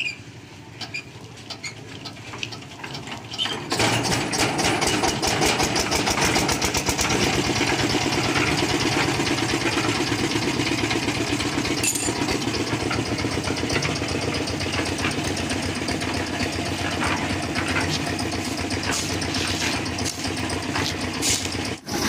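Engine of a portable concrete mixer starting about four seconds in, then running loudly and steadily with a fast knocking beat.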